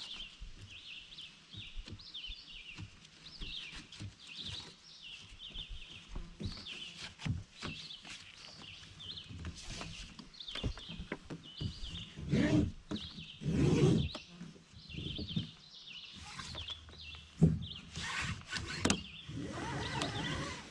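Songbirds chirping over and over in the background, with clicks, knocks and rustles as a kayak's roof-rack tie-down strap is worked loose and handled; a few louder rustling thumps come about two-thirds of the way in.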